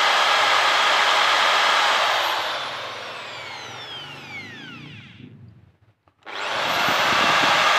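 Electric drill with a 2 mm bit boring into the steel end of a car's rear stub axle at the hub nut. It runs steadily, is released about two seconds in and spins down with a falling whine, goes quiet for a moment, then starts up again just after six seconds.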